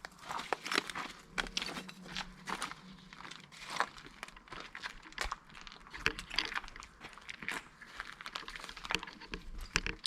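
Footsteps crunching and crackling irregularly over debris.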